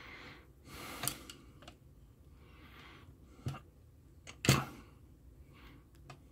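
A few sharp clicks and knocks of a circuit board being handled and turned over in its holder, the loudest about four and a half seconds in, with faint rustling between.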